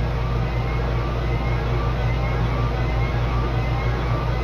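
Low, steady droning rumble with a pulsing hum, and faint short rising tones repeating above it: the ominous background drone of a fictional Emergency Alert System broadcast.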